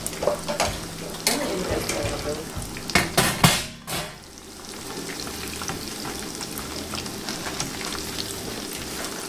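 Coconut-breaded lobster bites deep-frying in a pan of hot oil, a steady crackling sizzle. Knocks and clatter in the first half, loudest about three and a half seconds in as a metal tray is set down on the stove. Then light clicks of tongs turning the pieces.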